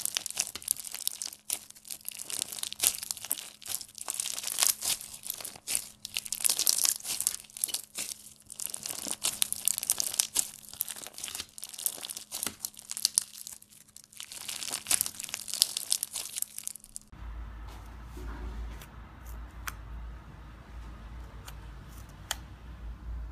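Slime being handled with a dense, crackling crunch, many small clicks and tearing sounds close together, typical of crunchy slime. Near the end it cuts to a quieter stretch with a low hum and a few scattered clicks.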